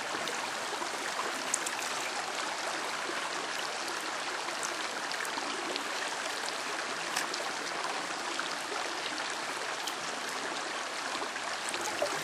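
Shallow creek water flowing steadily, with trickles and small splashes as water and sand are swirled out of a gold pan into a catch pan held beneath it while panning down concentrates.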